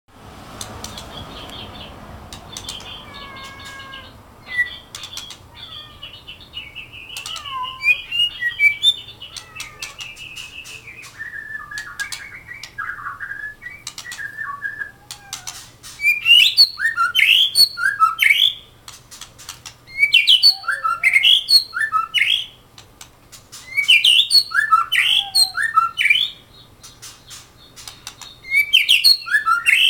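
A caged white-rumped shama singing: varied softer whistled phrases at first, then, from about halfway, loud bouts of rapid, rich whistled notes a few seconds apart. Many sharp clicks run through it.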